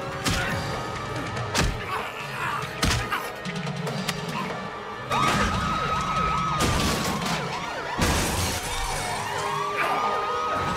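Action-film soundtrack: sharp thuds of a fistfight inside a car in the first few seconds, over tense music, then police sirens wailing from about five seconds in.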